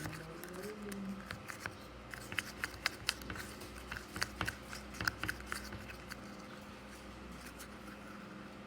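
Irregular small clicks and taps of things being handled by hand, thickest in the middle and dying away after about six seconds, with a brief murmur near the start.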